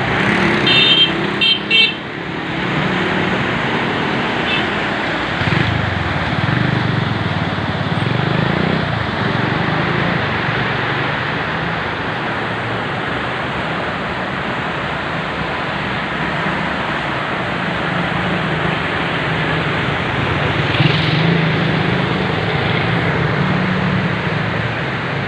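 Steady rushing noise of fast-flowing flood water and passing road traffic, with a few short vehicle-horn toots about a second in.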